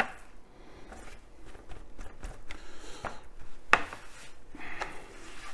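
Paper towel patting and rubbing a sous-vide-cooked tri-tip dry: soft rustling of the paper with a few light taps, the sharpest about three and a half seconds in.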